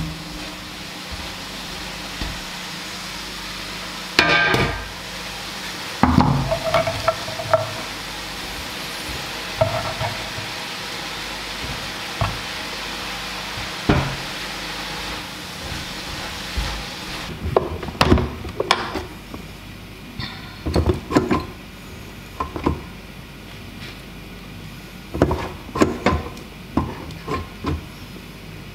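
Food sizzling in a frying pan, with utensils knocking and scraping against the pan. The sizzle stops a little over halfway through, and a run of sharp clinks and knocks follows.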